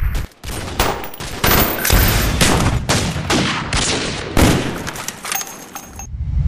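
Gunfire: a fast, irregular string of loud shots, about three a second, with a short break near the end.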